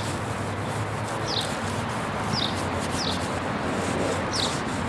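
Lemon half coated in baking soda scrubbed on a cloudy plastic headlight lens: a steady rubbing hiss. A bird chirps short falling notes every second or so.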